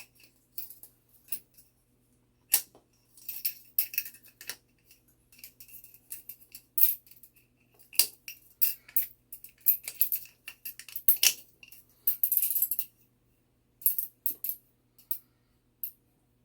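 Irregular sharp metallic clicks and clinks from a clock mainspring winder being worked to load a mainspring, in uneven clusters.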